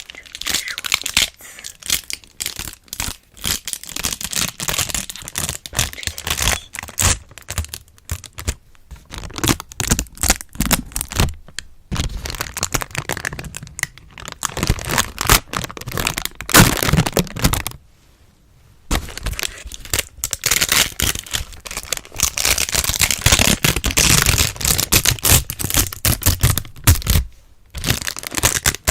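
Wax cloth crinkled and rubbed close to the microphone: a dense run of sharp crackles with short breaks, and a pause of about a second midway.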